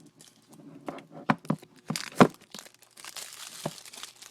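Plastic shrink-wrap crinkling and tearing as it is pulled off a phone box: a run of sharp crackles, the loudest about two seconds in, then a second or so of steady rustling.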